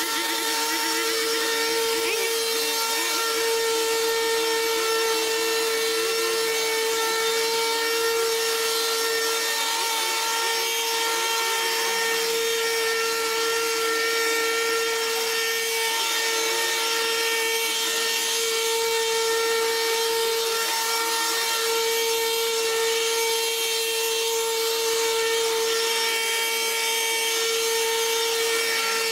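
Brush cutter running steadily at high speed while cutting overgrown grass: a constant high whine with overtones, holding an even pitch and level throughout.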